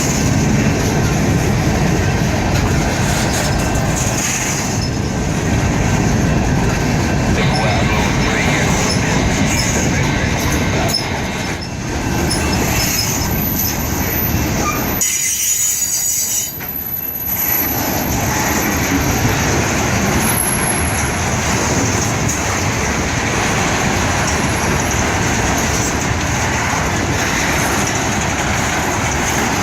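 CSX freight train's cars rolling past on the rails, a steady rumble and rattle of wheels, with a brief dip in the noise about halfway through.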